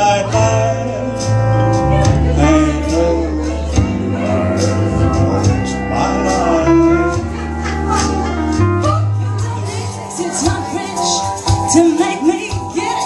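Karaoke: a man singing into a handheld microphone over a recorded country backing track with bass and guitar. The steady bass drops out about two-thirds of the way in and the music changes.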